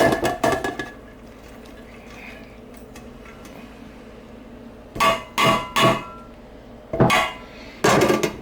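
A utensil clanking and scraping against a cooking dish as ground beef is added and mixed into pasta: a burst of clinks at the start, a pause, then several more rattling bursts in the second half.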